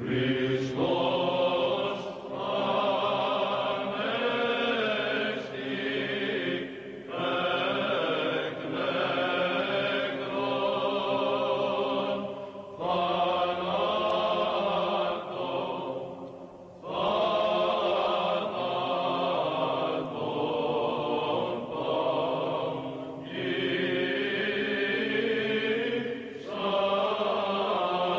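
Orthodox liturgical chant: voices singing in long phrases of a few seconds each, with short breaks between them.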